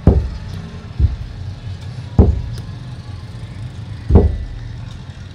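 Four heavy thumps of hand-printing Ajrak cloth, a carved wooden block struck by hand onto cloth laid on a padded table, spaced about one to two seconds apart, over a steady low hum.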